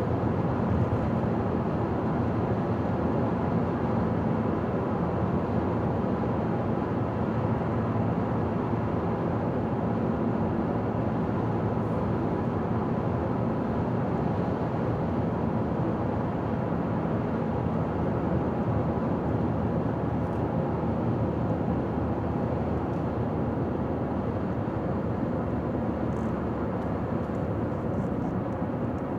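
A car driving steadily at highway speed: an even rumble of tyre and road noise with engine hum.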